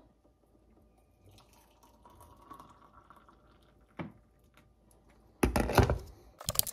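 Hot water poured from an electric kettle into a ceramic mug over a tea bag, a faint trickle filling the mug. A single click partway through, then a burst of loud knocks and clatter near the end.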